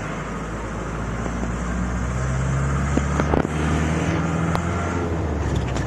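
Motorhome engine and road noise heard from inside the cab while driving. The engine note rises a little during the first half and then holds steady, with a few light clicks midway.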